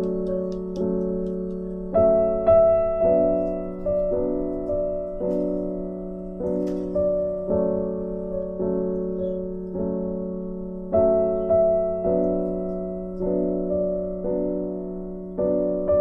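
Background piano music: a slow, gentle piece with regular, evenly spaced notes over a held chord.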